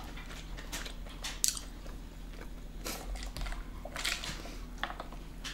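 Close-miked mouth sounds of sipping soda through a straw and swallowing, with a few scattered wet clicks.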